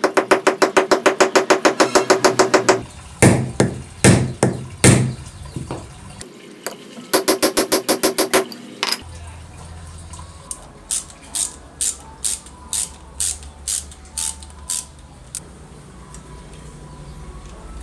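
A hammer tapping fast on a metal tube to drive a ball bearing onto a shaft, about nine taps a second, each with a metallic ring; then four heavier separate blows, and a second fast run of taps about seven seconds in. After that come lighter, scattered metallic clicks.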